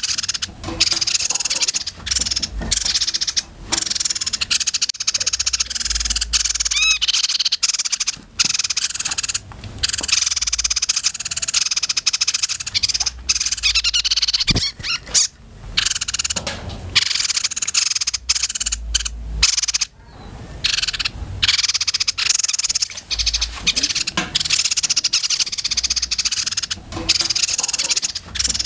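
Small caged songbird singing a long, fierce, rapid chattering song, high-pitched and buzzy. It comes in fast runs with brief breaks about halfway through and again about two-thirds of the way in.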